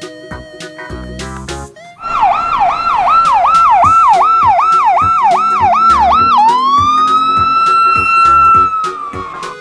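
Electronic toy siren: a fast yelping sweep about three times a second, then one long wail that rises, holds and sinks near the end.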